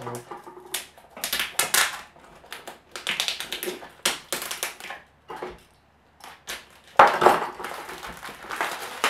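Clear tape and plastic seal being picked and peeled off a small cardboard box, in short irregular crackling bursts with a pause of about a second halfway through. Louder handling of the box near the end.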